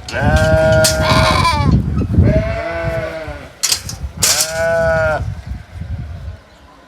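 Sheep bleating loudly three times, each call about a second long and shaking in pitch.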